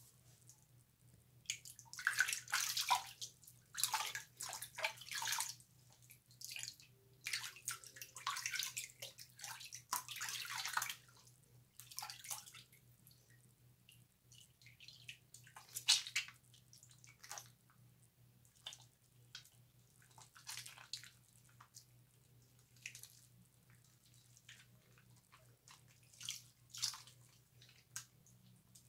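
Wet bar soap being lathered, with squishy rubbing strokes and drips of water. The rubbing is dense for the first ten seconds or so, then thins to scattered single squelches and drips.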